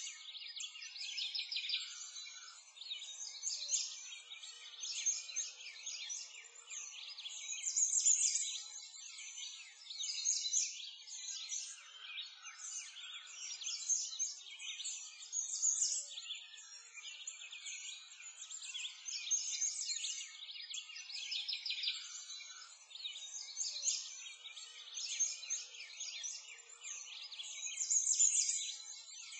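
Many songbirds singing at once: a dense, continuous chorus of high chirps, trills and tweets that swells and fades every second or two.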